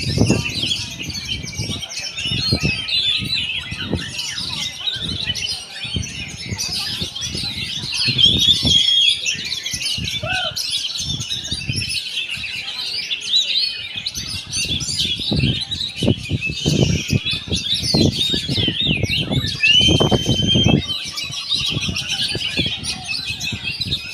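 Oriental magpie-robin (kacer) singing without pause, a fast, varied stream of whistles, trills and chirps, with some longer held whistles near the end. Low dull knocks sound often underneath the song.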